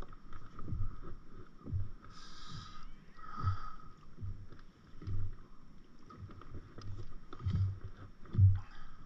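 Small waves slapping against the hull of an inflatable stand-up paddleboard: irregular soft low knocks, with a short hiss about two seconds in.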